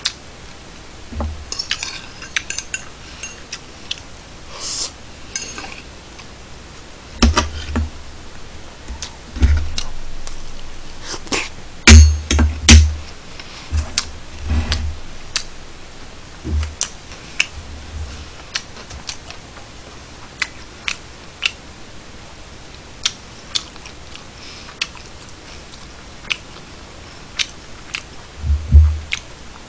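Metal fork and knife clinking and scraping against ceramic plates while eating, in scattered sharp clicks, with several dull low thumps on the table, the loudest about halfway through and again near the end.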